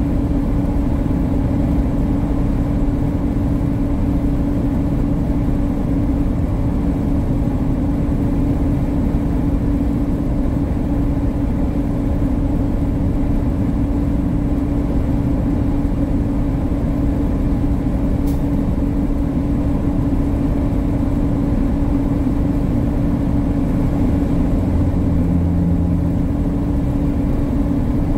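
Inside a tractor-trailer cab cruising at highway speed: a steady engine drone and road rumble, with one constant hum tone over it. A faint tick comes about two-thirds of the way in, and a brief extra low hum comes near the end.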